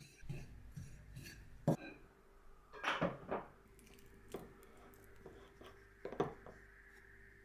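Kitchen dishes and utensils knocking and clinking: half a dozen separate knocks and clatters spread over several seconds, with a steady low room hum beneath.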